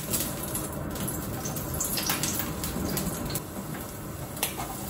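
Olive oil heating in a frying pan, sizzling with a steady hiss and many small crackles. Sliced king oyster mushrooms go into the pan near the end.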